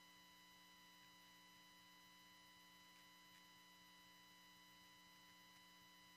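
Near silence: only a faint, steady electrical hum and hiss in the broadcast audio.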